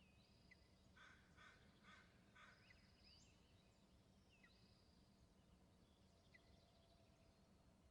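Faint outdoor birdsong: a run of four harsh calls about half a second apart, about a second in, among scattered short chirps and thin whistled notes from small birds.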